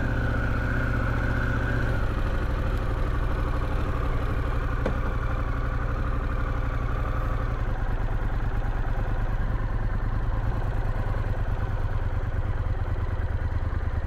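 Harley-Davidson Pan America Special's 1250 V-twin engine idling steadily while the motorcycle stands still.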